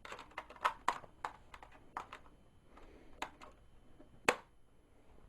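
A laptop's plastic memory compartment cover being fitted back onto the underside: a scatter of light clicks and taps, with one sharp snap about four seconds in.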